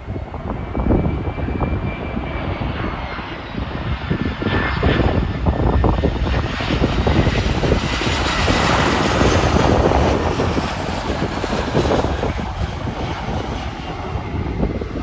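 Jet airliner's engines passing, a faint whine that drops slightly in pitch over a rushing noise that builds to its loudest about nine seconds in and then eases. Gusty wind buffets the microphone throughout.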